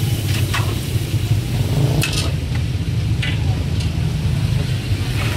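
Wok cooking at a street-food stall: a metal ladle scrapes and clinks in the wok a few times over frying sizzle, with a steady low hum underneath.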